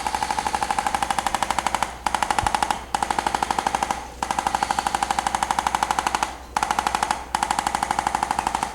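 Handheld electric percussion therapy device running against the body: rapid, evenly spaced taps, many per second, in six bursts with brief pauses where it is lifted and repositioned.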